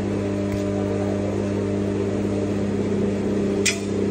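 Steady hum of a running electric motor, even in pitch throughout, with one short sharp click about three and a half seconds in.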